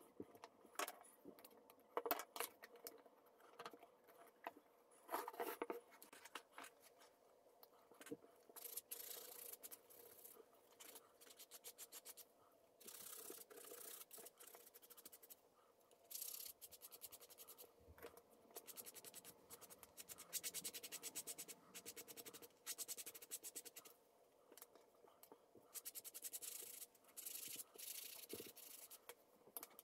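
Small wooden parts being hand-sanded with a flat sanding stick: quick back-and-forth rubbing strokes in runs of several seconds with short pauses. In the first few seconds there are light clicks and knocks as the wooden pieces are handled and fitted together.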